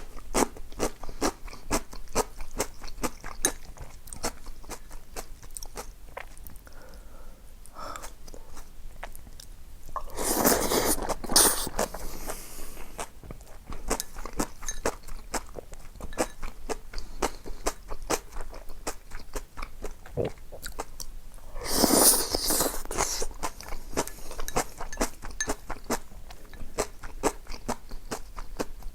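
A person eating close to the microphone, chewing with a dense run of small crisp clicks. Two louder, longer noisy bursts come about ten and twenty-two seconds in.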